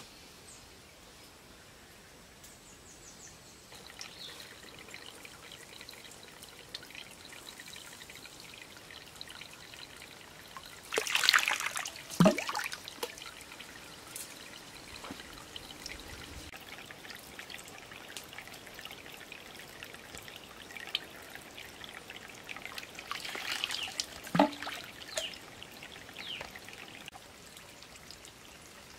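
Water trickling steadily from a bamboo pipe spout into another bamboo pipe, with louder splashing and gurgling twice.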